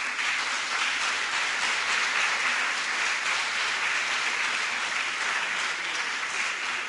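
An audience applauding, beginning to die down near the end.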